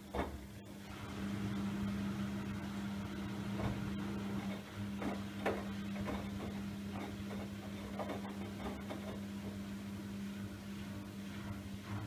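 Siemens iQ700 front-loading washing machine going into its interval spin after the first rinse: a steady hum at one pitch comes in about a second in, with scattered knocks from the wet load in the drum.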